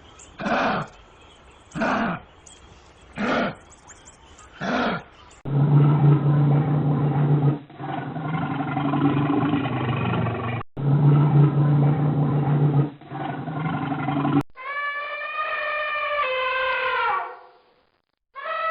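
A run of wild animal calls played one after another: first five short grunting roars about a second and a half apart, typical of the close of a lion's roar. Then a long, low, rumbling growl that breaks off once and resumes. Last comes a drawn-out, falling, howl-like call with several overtones.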